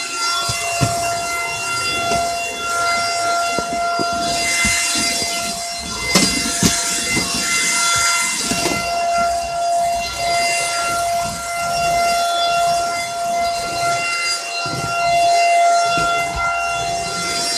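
Dirt Devil Power Stick stick vacuum running with a steady high motor whine, with louder rushes of airflow between about four and nine seconds in and scattered sharp clicks of debris being picked up.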